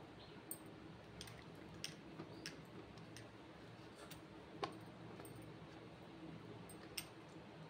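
Faint, scattered clicks and light taps, a handful over several seconds, from peeled ambarella fruits being handled in a plastic bowl of water and set on a ceramic saucer. Underneath is a low, steady background hum.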